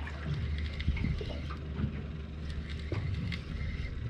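Spinning reel being wound in against a hooked fish on a jig. A steady low hum runs underneath, with a few light knocks and ticks.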